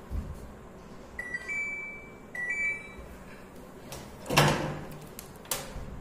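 Samsung top-load washing machine control panel beeping twice, each a short two-note electronic chirp that steps up in pitch, as the machine is switched on. A brief scuffing noise follows, then a click.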